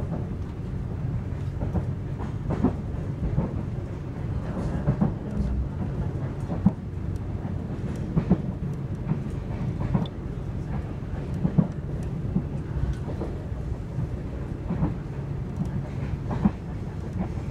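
Passenger train heard from on board while running at speed: a steady low rumble of the wheels on the rails, broken by frequent irregular clacks and knocks.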